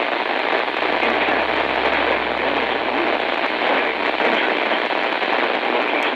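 Radio static: a steady hiss of noise from a NOAA weather radio receiver, with no broadcast voice coming through.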